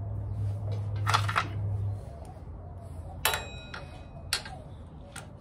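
Small clicks and rattles of hands working a motorcycle starter relay solenoid and its plastic wiring connector. About three seconds in comes a sharp metallic clink with a brief ring, as of a small bolt knocking, and two more single clicks follow. A steady low hum stops about two seconds in.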